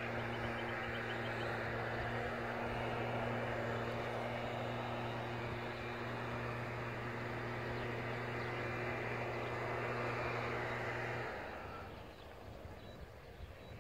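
Diesel locomotive running steadily off to one side: a low, even engine hum under a broad rushing noise, which cuts off suddenly about eleven seconds in.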